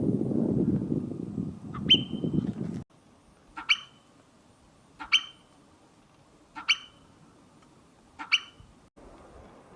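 Forest-steppe marmot giving sharp, rising alarm whistles: one about two seconds in, then four more evenly spaced about a second and a half apart. A low rumbling noise fills the first three seconds and stops abruptly.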